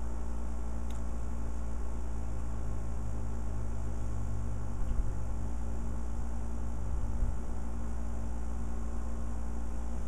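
Steady low electrical hum over a faint even hiss, with two soft low thumps about five and seven seconds in.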